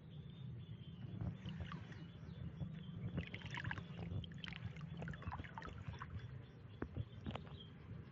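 Water sloshing and splashing as a scoop basket on a long pole is dragged through a shallow, algae-choked ditch and lifted out full of algae, with a scatter of irregular splashes and drips over a low steady rumble.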